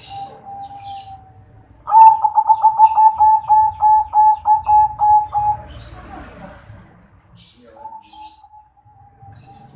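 Zebra dove (perkutut) of a local × Bangkok crossbred 'kresing' line cooing. A soft drawn-out coo gives way about two seconds in to a loud, quick run of about fourteen rolling notes, about four a second, and another long coo starts near the end.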